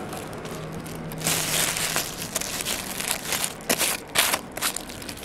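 Clear plastic wrap and a foil pack crinkling as they are pulled off a baseball, with a few sharper crackles in the second half.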